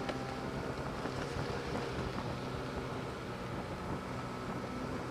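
Snowmobile engine running at a steady pitch under way through deep snow, with an even rushing noise over it.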